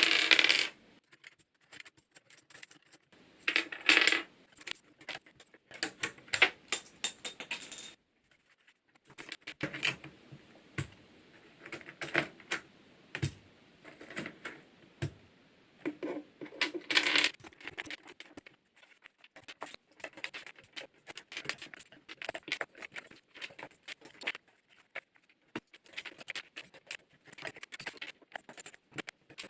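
Plastic keycaps being pulled one after another off a Hansung GK888B electro-capacitive keyboard, with many small clicks and a few louder clattering bursts as loose keycaps are dropped together.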